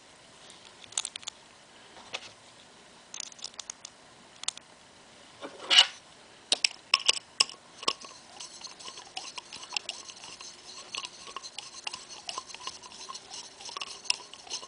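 Small metal clicks and ticks as hex bolts are fitted and threaded into the aluminium body of a Scotts steering damper. The clicks are scattered at first, with one sharp louder click about six seconds in, then come in a rapid, dense run of ticking.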